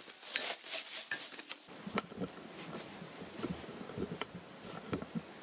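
Plastic crinkling and rustling as a plastic bottle and a plastic-wrapped bag are handled, then scattered light knocks and taps of handling.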